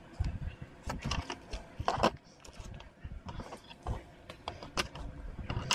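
Hard plastic tank-kit puzzle pieces clicking and knocking on a desk as they are handled, with a paper instruction sheet rustling. Irregular clicks and brief rustles, the loudest about two seconds in.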